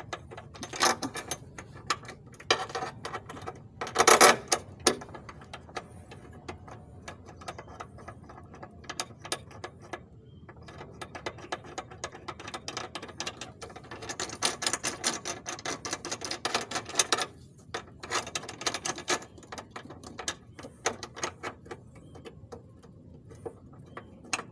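Hand ratchet wrench clicking in quick runs as it turns a long socket on the subframe brace bolts, with a louder clatter of metal about four seconds in.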